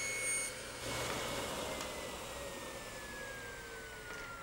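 Table saw switched off, its blade and motor coasting down: the whine falls slowly and steadily in pitch.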